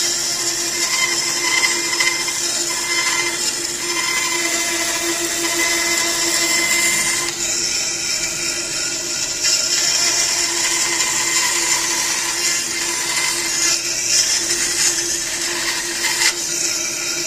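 Bandsaw running steadily, its blade cutting through a small block of wood to make wooden plugs, with a steady hum under a high hiss.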